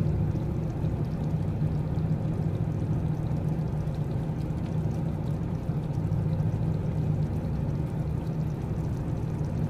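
A pan of gravy cooking over a lit gas stove while it is gently stirred with a spatula: a steady low rushing noise.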